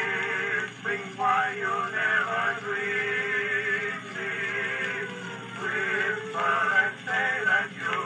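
Edison Standard cylinder phonograph playing a record of a sung song. It has a thin, narrow-range sound that lacks deep bass and high treble. The vocal line wavers with vibrato and pauses briefly between phrases.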